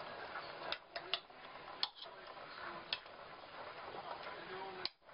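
A metal utensil clicks sharply against a stainless steel pot, five irregular knocks, as chicken pieces are turned in sauce over a steady hiss.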